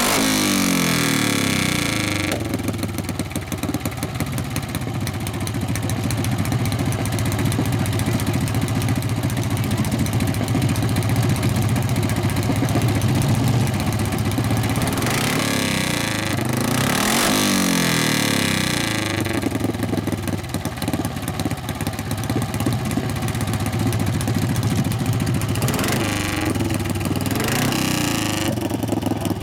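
Harley Sportster-based 650cc single-cylinder land-speed racing engine running, loud and steady, with the revs falling back just after the start and dipping and rising again about midway.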